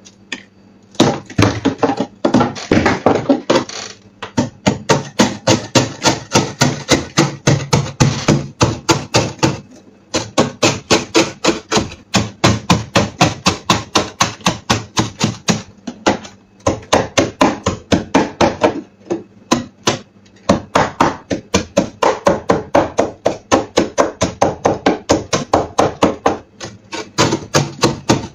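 A metal blade chopping and scraping thick frost build-up inside a freezer: quick repeated strikes, several a second, in runs broken by short pauses.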